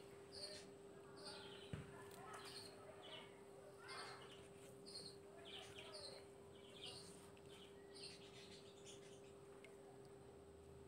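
Faint birds chirping, short high calls repeated about twice a second that die away near the end, over a steady low hum.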